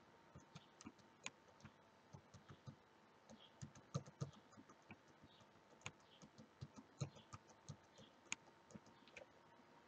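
Faint, irregular clicking of computer controls being pressed, several clicks close together at times, over a faint steady hum.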